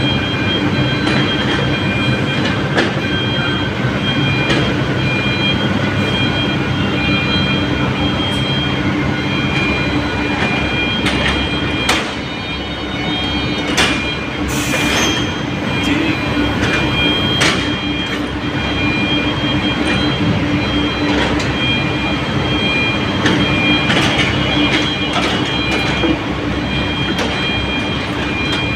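Small crawler excavator running under load as it climbs, a steady engine drone with high steady whistling tones over it and irregular metallic clanks from its steel tracks.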